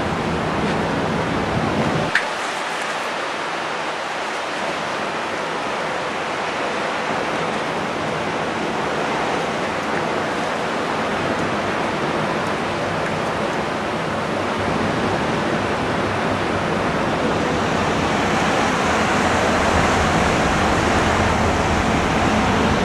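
Steady rushing wind and water noise on the open deck of a moving ship, with no pitched tones. A click about two seconds in is followed by the low rumble dropping away for a while, and the rush builds a little toward the end.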